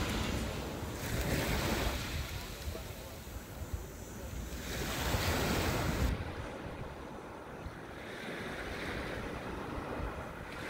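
Small waves breaking and washing up a pebble shore, swelling twice and easing off toward the end, with wind buffeting the microphone.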